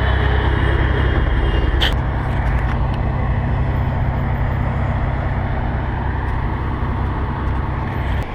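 Steady low vehicle-engine rumble with a sharp click about two seconds in; the rumble drops away abruptly near the end.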